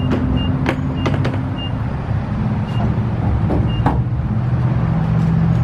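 Steady low mechanical hum, like an idling vehicle or pump machinery, with a fuel dispenser beeping several short high beeps over it and a few sharp clicks.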